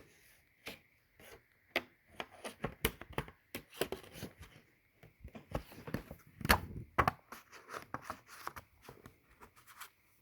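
Hands handling coins and a coin album: irregular clicks, taps and rustles of plastic and paper, with the loudest knock about six and a half seconds in.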